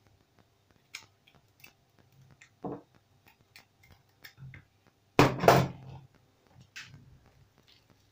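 A large kitchen knife cutting broccoli florets from the stem over a wooden cutting board: scattered knocks and clicks, the loudest a short cluster about five seconds in.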